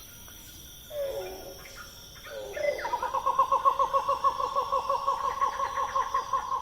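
Forest ambience: a bird gives a short falling call about a second in, then from about three seconds a fast, even run of hooting notes, roughly six a second, over a steady high insect drone.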